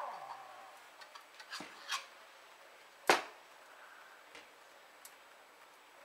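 A few sharp clicks and knocks of a cup being lifted off the metal drip tray grate of a Gaggia Classic espresso machine, the loudest knock about three seconds in; the flow of the shot dies away at the very start.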